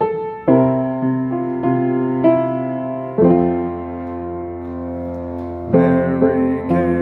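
Piano playing the slow opening chords of a gospel song. Each chord is struck and left to ring, a new one about every second, with one chord held for about two and a half seconds midway through.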